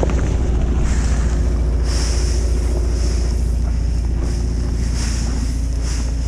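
An engine running steadily with a low drone, with a few brief gusts of wind on the microphone.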